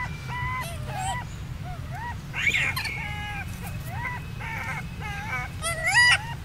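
Infant macaque giving repeated short, high-pitched cries, about two a second, each rising and then levelling off, with two louder, more strained cries: one about two and a half seconds in and one near the end.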